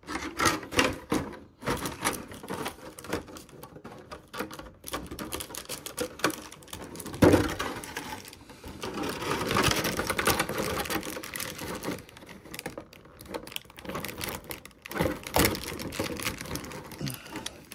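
Figure packaging being handled: a plastic blister tray and cardboard crinkling, rustling and clicking irregularly, with one sharp knock about seven seconds in.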